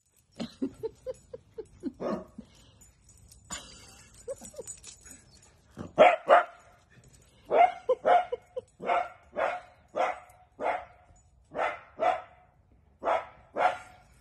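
Small dachshund barking: a quick run of small high yips at first, then louder, sharp barks from about six seconds in, mostly coming in pairs.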